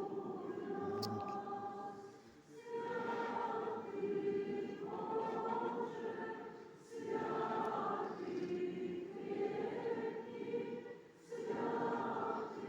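A choir singing an Orthodox church chant in slow phrases of about four seconds, each followed by a brief pause for breath.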